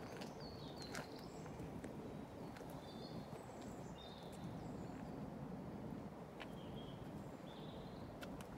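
A small bird calling in short, high chirps every second or so over a steady low background noise, with a few sharp clicks of footsteps.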